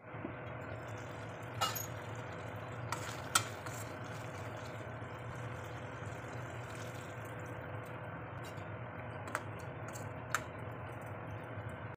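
Vegetable gravy simmering in a stainless steel kadai, a steady hiss, with a few sharp clinks of a steel ladle against the pan, the loudest about three seconds in.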